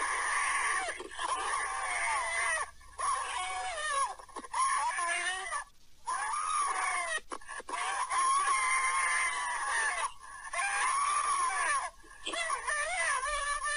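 An elderly woman screaming for help over a telephone line on an emergency-call recording: long, high, strained cries broken by short pauses. She is being choked and is crying that she cannot breathe.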